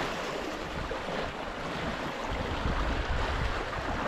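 Sea water washing and splashing against shoreline rocks, a steady rush of surf, with wind rumbling on the microphone.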